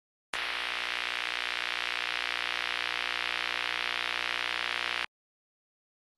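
Intro sound effect: a steady static hiss over a low electronic hum. It starts just after the beginning and cuts off suddenly about five seconds in.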